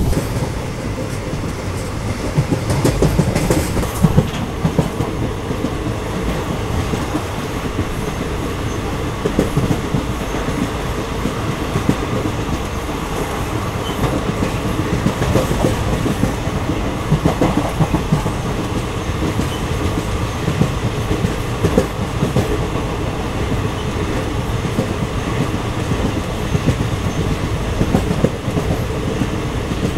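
Coaches of the Coimbatore–Tirupati Intercity Express running on the track: a steady rumble with the wheels clacking over the rails at irregular moments.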